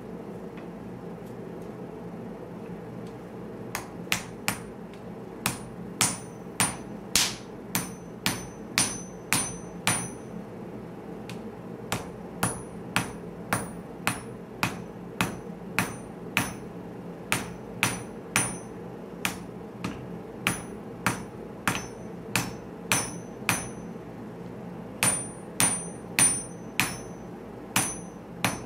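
Hand hammer striking a red-hot Damascus steel bar on an anvil. The blows come about two a second in runs with short pauses, each with a bright metallic ring, and start about four seconds in. Under them runs the steady hum of a gas forge burner.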